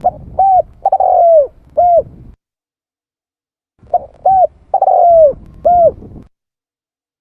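Spotted dove (tekukur) cooing: two phrases of four notes each, a few seconds apart. In each phrase the third note is the longest and slides down in pitch.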